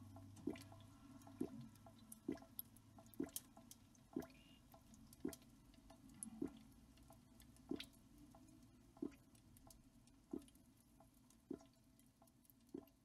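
Faint, regular drip-like taps, about one a second and slowly spacing out, over a low steady room hum.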